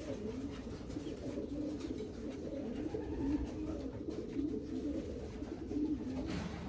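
Racing pigeons cooing continuously in low, wavering coos.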